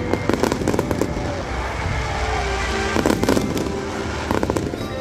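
Aerial fireworks bursting, with clusters of sharp bangs near the start, about three seconds in and again near the end, over music.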